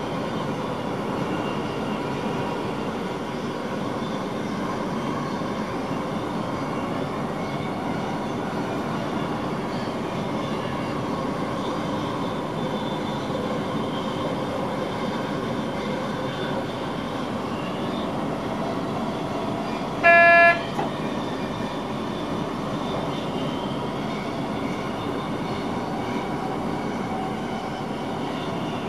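Steady running noise inside an electric train's cab as it rolls along the track. About two-thirds of the way through comes one short, loud toot, most likely the train's horn.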